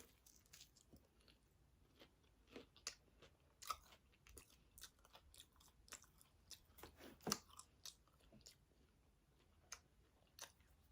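A person chewing a bite of a Little Caesars Crazy Puff: faint, irregular mouth clicks and small crunches.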